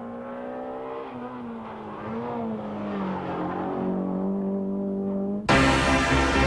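Renault Clio rally car's engine under load on a tarmac stage, its note holding steady, wavering briefly about two seconds in, then settling lower and growing louder as the car comes closer. Music starts abruptly near the end.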